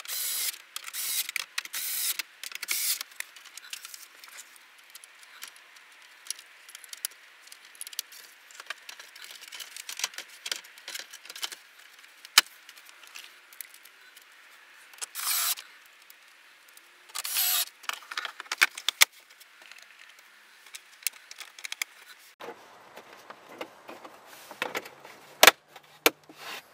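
Short bursts of a small cordless screwdriver driving the dash display's screws back in, among many clicks and rattles of plastic dash trim and parts being handled. Near the end the trim bezel is pressed back onto the dash with a few sharper clicks.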